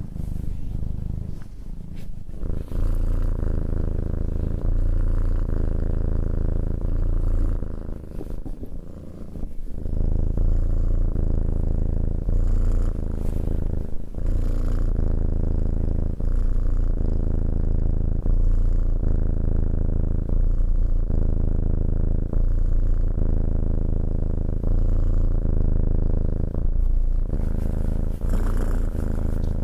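Tabby cat purring steadily while being stroked by hand, the purr pulsing with its breathing, about one short break every two seconds.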